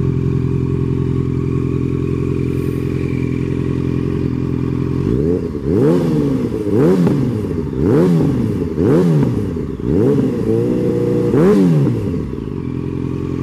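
2012 Yamaha FZ8's inline-four engine through a Two Brothers Racing aftermarket exhaust, idling steadily, then blipped about six times in quick succession from about five seconds in, each rev rising and falling sharply, before dropping back to idle near the end.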